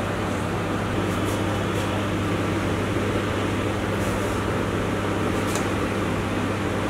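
Steady machine hum: a constant low drone with hiss, and a few faint ticks.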